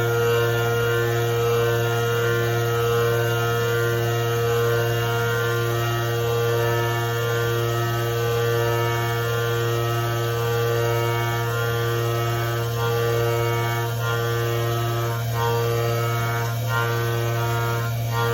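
CNC milling machine running its programmed cycle, milling a small pocket: a steady hum from the spindle and drives with many steady tones above it. A few faint ticks come near the end.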